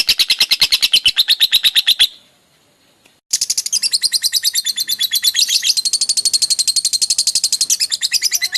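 Lovebird in 'ngekek' chatter: a fast, shrill, evenly repeated trill of chirps, about ten a second. It breaks off about two seconds in, then starts again about a second later and keeps going. This is the long, near-unbroken 'konslet' style of ngekek.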